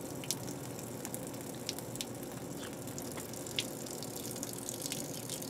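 A thin stream of water splashing steadily onto the ground as the radiator and engine block of a Dodge 440 are flushed, with a few light ticks scattered through it. The water running out is clean, with no rust.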